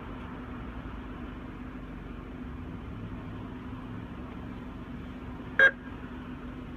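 A drive-up ATM gives a single short electronic beep about five and a half seconds in, over the steady low hum of an idling car.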